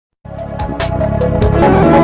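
Music from an AM/FM radio broadcast starting a quarter second in and getting louder, with a quick steady beat and sustained notes.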